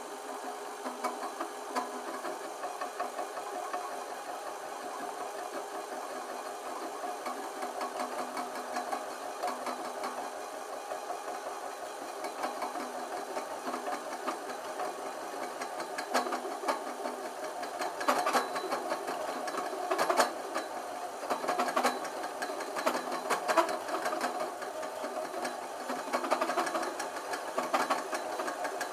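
Small metal lathe running steadily, turning a copper pipe while a tool in the tool post works its surface. A steady mechanical whir with rattling, and sharper scraping clicks that come more often in the second half.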